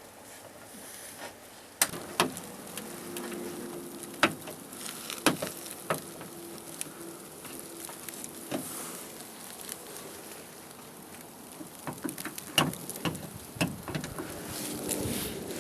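Scattered sharp clicks and knocks of hand work inside a car door as a door handle and its linkage are fitted, over a steady hiss.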